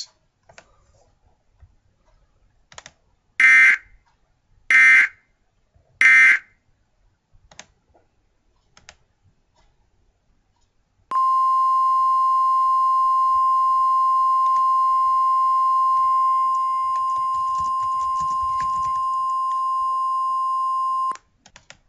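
Emergency Alert System signal: three short, harsh data bursts about a second and a half apart. After a pause, a single steady high alert tone is held for about ten seconds and then cuts off suddenly. Faint clicks fall in the gaps.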